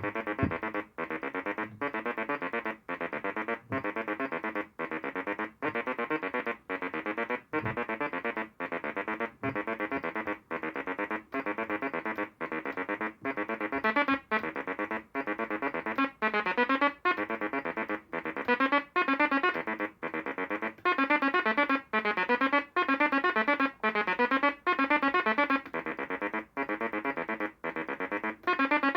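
Homemade analog synthesizer's oscillator stepping through a repeating pattern from its clocked sequencer. It plays buzzy notes in an even rhythm with short gaps between them. The tone turns brighter and louder about halfway through.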